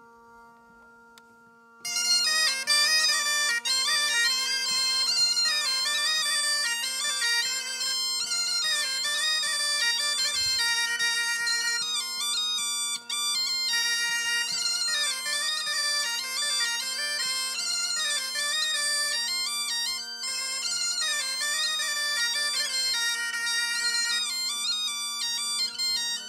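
A bagpipe playing a dance tune over two steady drones. For the first two seconds only the drones sound, faintly, then the chanter's melody comes in loud.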